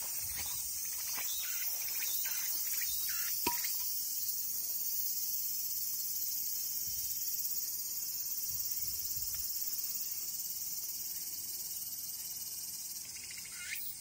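Cicadas singing in a steady, high-pitched chorus. A few brief rustles and one sharp click come in the first few seconds.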